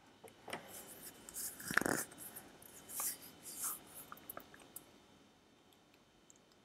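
Faint rustling with scattered light clicks, strongest in the first four seconds and then dying away.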